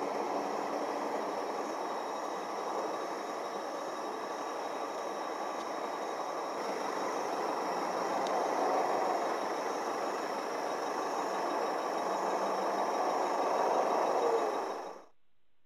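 Steady engine and road noise from a line of stopped trucks idling, a continuous even hum that cuts off suddenly near the end.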